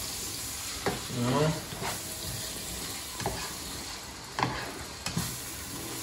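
Carrots and rendang paste sizzling steadily in a hot frying pan as they are stir-fried. A slotted spatula scrapes and knocks against the pan several times, loudest about a second in.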